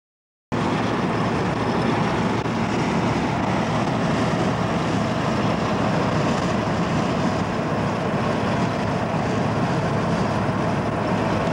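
Steady road and engine noise of a vehicle driving at highway speed, heard from inside the cab. It starts abruptly about half a second in and holds level.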